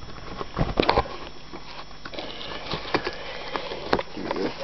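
Cardboard pizza box being pried apart at its glued edges and unfolded flat: irregular crackles, creaks and knocks of the card, the sharpest a little under a second in, about a second in and about four seconds in.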